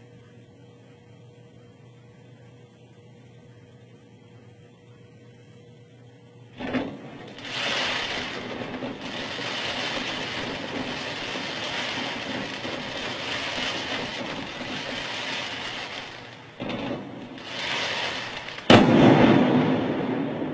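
Explosive charges on a building set for demolition: a sharp bang about six and a half seconds in, then a long loud rushing noise, and a louder sharp blast near the end that dies away slowly.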